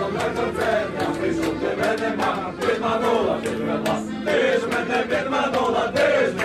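A choir of voices singing together, with frequent sharp clicks.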